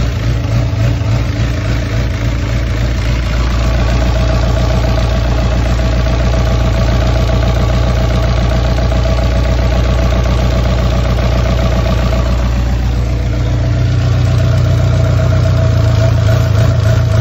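Sailboat's inboard diesel engine idling steadily, heard up close in the engine compartment, running just after start with its broken-off exhaust hose pushed back on and held with tie wraps, leaking only a little.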